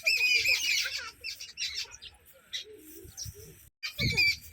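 A group of sparrows chirping: a dense chatter of short chirps, loud in the first second, then thinner and quieter, cutting out briefly near the end before the loud chirping starts again.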